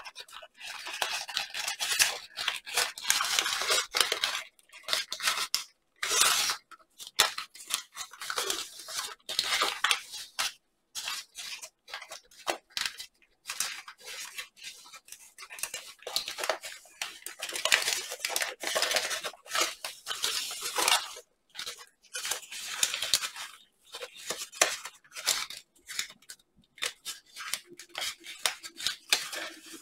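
Paper crinkling and rustling as hands fold and pinch a thick, many-layered origami model, in irregular bursts with short silent gaps.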